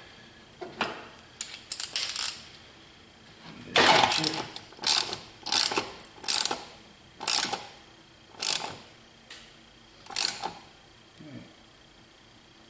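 Hand ratchet with a long extension clicking in short bursts as it is swung back and forth to tighten a fastener. The bursts are sparse at first, then come about once a second from about four seconds in, and stop near the end.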